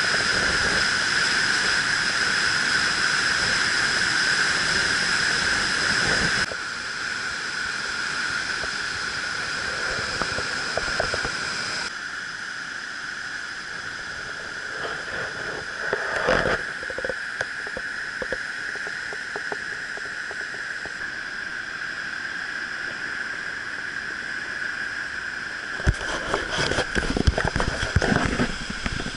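River in flash flood, swollen water pouring over rapids: a steady rushing noise that steps down in level twice in the first twelve seconds. A run of knocks and bumps comes near the end.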